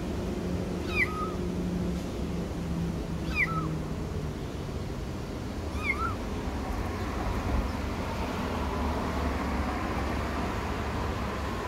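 Kitten meowing three times: short, high calls that dip in pitch, about two and a half seconds apart, over a steady low background rumble.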